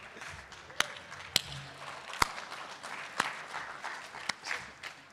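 Audience applauding, with about five sharp, separate claps close to the microphone standing out from it.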